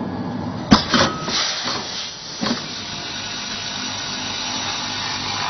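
Seed and snack packaging machine running, with a few sharp clacks in the first half, then a steady hiss as small pieces of product pour down its stainless steel chute into the funnel.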